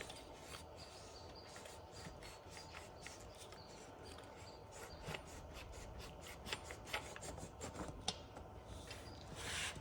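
Faint rubbing and scraping with light clicks and taps as parts of a Torqeedo electric outboard are handled and worked loose by hand. The clicks come more often in the second half, and a short scrape swells just before the end.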